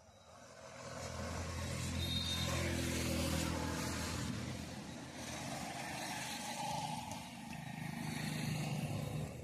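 Motor vehicles passing on a road, their engines humming louder and fading, with two passes loudest about two to four seconds in and again near the end.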